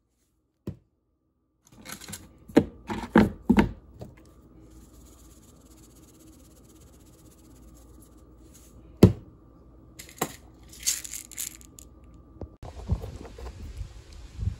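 Knocks and clicks of handling on a cutting board while raw burger patties are seasoned. A cluster of sharp knocks comes about two seconds in, a single loud knock around the middle, and short rattling bursts soon after. Near the end a steady outdoor hiss takes over.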